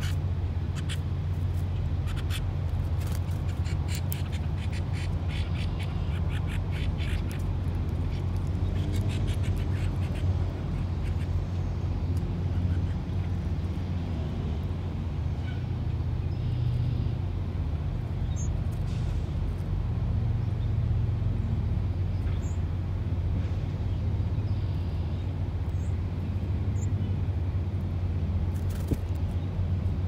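A steady low outdoor rumble, with scattered taps in the first ten seconds and a few faint, short, high bird chirps in the second half.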